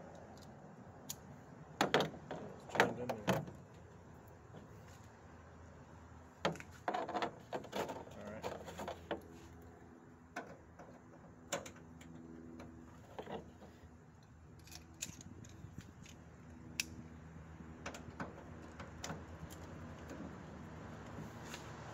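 Hand tools clicking, tapping and rattling against a pickup's tail light housing and its fittings as it is worked loose. There is a flurry of clicks about two seconds in and another a few seconds later, then scattered single ticks.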